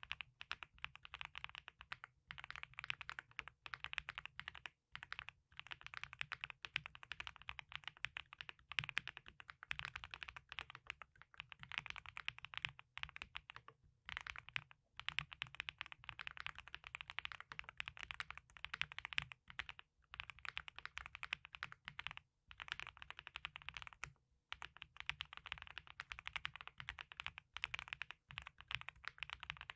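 Typing on a Null64 wooden-case mechanical keyboard with F1 switches: fast, continuous runs of key clicks and clacks, broken by a few short pauses.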